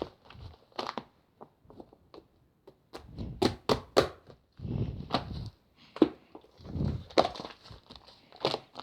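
Hands squishing and pressing slime, with irregular sticky pops and clicks, several in quick succession about three and a half to four seconds in.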